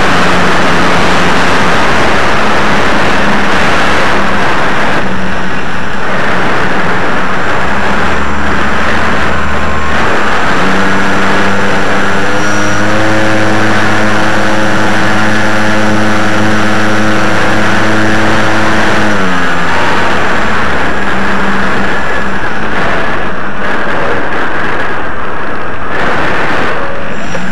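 Aircraft engine and propeller running in flight, heard from an onboard camera with heavy wind rush over the microphone. The engine note steps up about ten seconds in, holds steady, then drops back down near the end.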